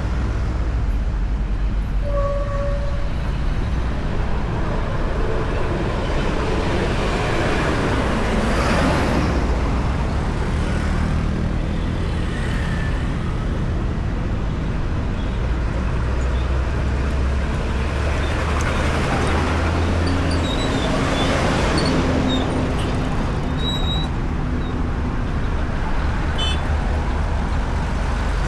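Heavy road traffic passing close by: a steady low rumble of engines and tyres on asphalt, with vehicles swelling loudly past about eight seconds in and again about twenty seconds in.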